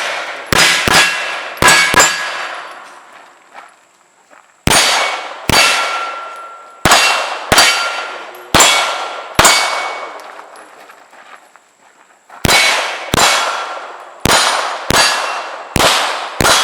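Centerfire pistol shots fired in quick strings of a few shots each, every shot followed by a ringing clang typical of a steel target being hit. There are two pauses of a couple of seconds between strings.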